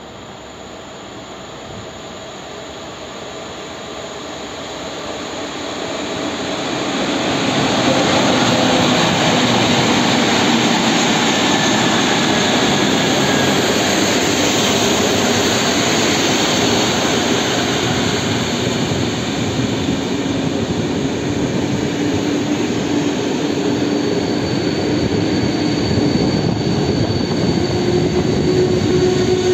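PKP Intercity passenger train, hauled by electric locomotives EU07-317 and a broken-down EP07-1023, approaching and running into the platform. A rushing rumble grows louder over the first several seconds as the locomotives arrive, then the coaches roll past with a steady noise. Faint squealing tones come in near the end as the train slows.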